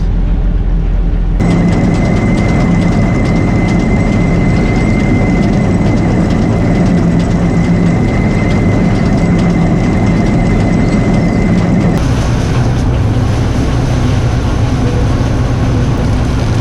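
Old combine harvester running steadily under load, with a thin high whine over the machinery noise for most of it. The sound changes abruptly about a second in and again near the end.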